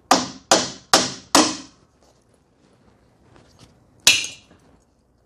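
Hammer tapping a bolt out of a rooftop tent's gas-strut mount: four sharp strikes about half a second apart. One sharp clank follows about four seconds in.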